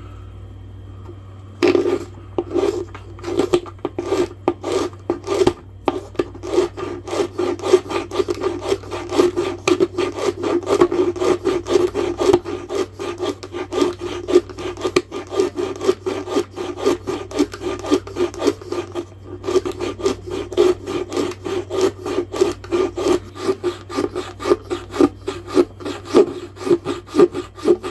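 A 4-in-1 hand rasp stroked quickly back and forth across a small piece of wood, roughing it down to shape: repeated scraping strokes that start about two seconds in, with a short break about 19 seconds in.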